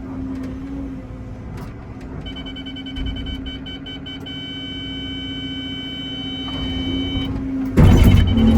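Excavator engine running steadily. A steady high tone enters about two seconds in and stops about seven seconds in. Near the end comes a loud crash and scrape as the bucket strikes solid shelf rock.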